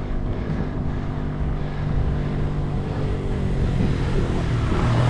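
A motor vehicle's engine running steadily, with a low rumble underneath, growing a little louder toward the end.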